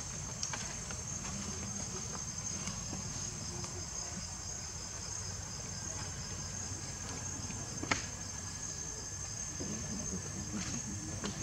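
Insect chorus, a steady high-pitched drone over a low rumble, with a single sharp click about eight seconds in.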